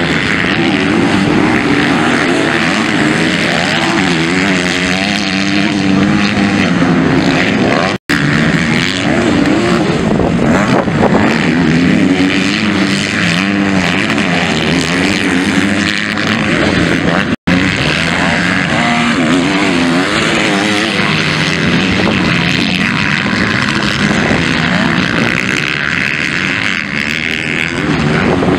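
MX2 motocross bikes racing, several engines revving up and down in pitch as the riders work the throttle over the track. The sound cuts out briefly twice.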